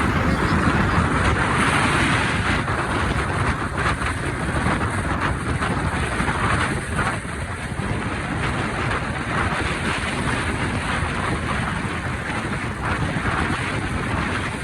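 Steady noise of a moving vehicle on the road, with wind buffeting the microphone.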